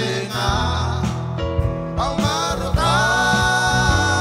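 Gospel worship band playing live: a singer over drum kit and keyboard, holding one long note near the end.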